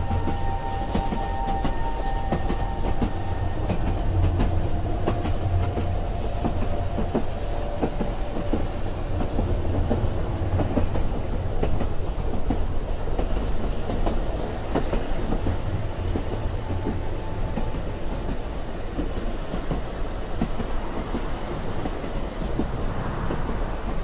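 Passenger train running, heard from inside a carriage: a steady low rumble with the continual irregular clatter of wheels over the rails. A faint whine fades out in the first few seconds.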